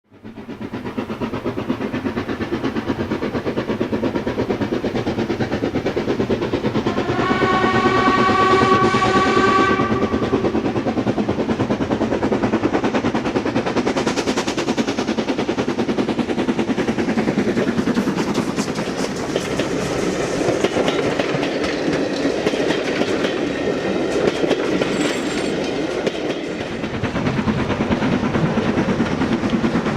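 Steam train running with a steady rhythmic clatter, and a steam whistle blowing for about three seconds, starting about seven seconds in.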